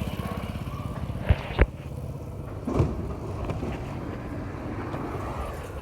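A motorcycle engine running with a fast, even low beat amid street traffic noise. Two loud sharp knocks come about a third of a second apart just over a second in, and a softer knock follows near the three-second mark.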